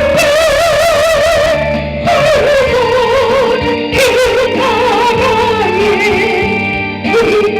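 A solo voice singing a Korean hymn, holding long notes with a wide vibrato over steady instrumental accompaniment.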